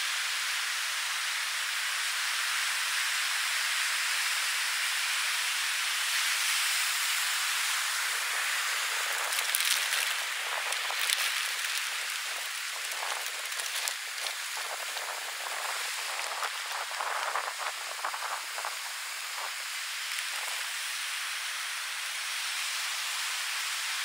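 Steady wash of sea surf on a beach, a continuous hiss. From about nine seconds in to about twenty-one seconds it is overlaid by irregular close crackles and clicks of handling.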